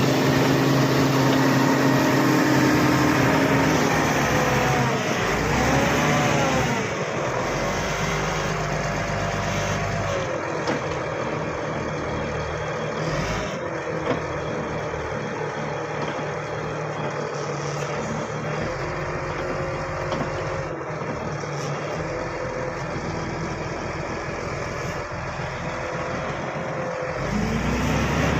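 Bulldozer's diesel engine working, its revs rising and falling a few seconds in, then running steadier and a little quieter before picking up again near the end.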